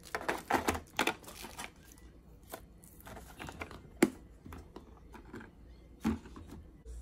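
Packaging and small items being handled on a surface. A quick run of rustles and clatters comes in the first two seconds, then a sharp tap about four seconds in and another about six seconds in.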